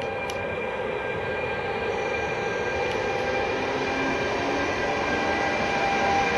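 FS E464 electric locomotive hauling Vivalto double-deck coaches past, with a steady electric whine of several held tones over the rumble of wheels on rail, growing slowly louder.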